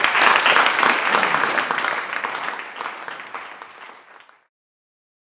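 Audience applauding, loudest at first and fading over about four seconds, then cutting off suddenly.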